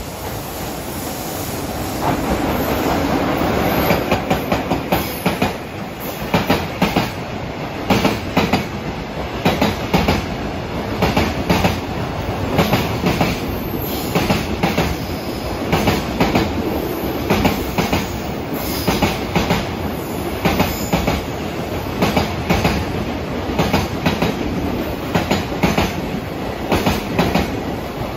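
JR Freight EF66 100-series electric locomotive approaching with a rising rumble, followed by a long train of Koki container wagons rolling past. From about four seconds in, the wheels clack over the rail joints in regular, repeating groups.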